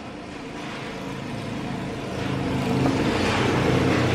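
A motor vehicle's engine growing louder, peaking near the end.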